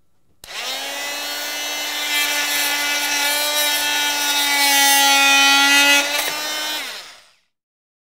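Porter-Cable oscillating multi-tool with a Rockwell universal-fit blade switching on with a steady buzz and plunge-cutting into a wooden board, louder as the blade bites into the wood. It is switched off and winds down, dropping slightly in pitch, and stops near the end.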